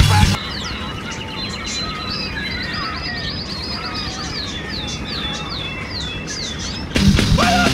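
Small birds chirping and singing, many quick falling chirps one after another, over a steady background hiss. Loud rock music cuts off just after the start and comes back in about a second before the end.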